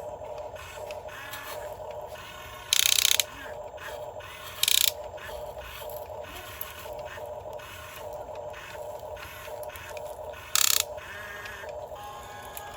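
Small geared motor of a toy construction machine running with a steady, rhythmic clicking of plastic gears, broken three times by short, loud hissing bursts.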